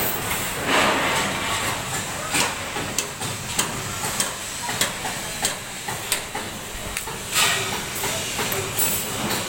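Construction-site din: irregular sharp knocks and clanks, like hammering on metal and formwork, over a steady hiss of machinery, with a few louder hissing surges near the start and about seven seconds in.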